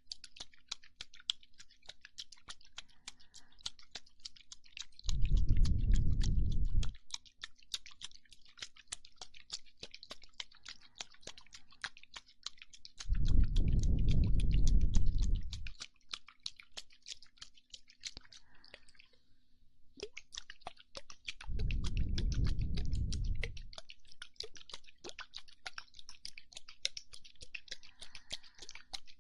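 Wet ASMR mouth sounds close to the microphone: a steady stream of rapid clicks and smacks. Three times, a breath is blown onto the microphone for two or three seconds, each one a loud, rumbling gust.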